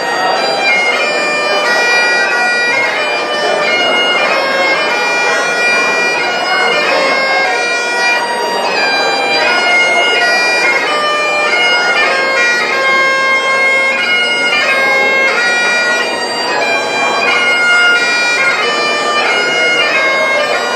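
Bagpipes playing a melody, its notes changing quickly over the steady, unbroken hum of the drones.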